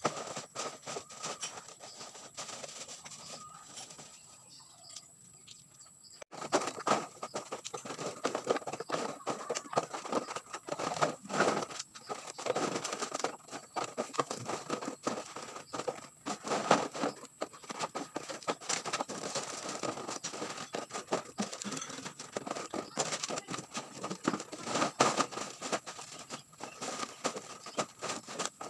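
Empty plastic bottles crackling and clattering as they are handled and stuffed into a woven plastic sack. Sparse clicks for the first six seconds or so, then a dense, steady run of crinkles and knocks.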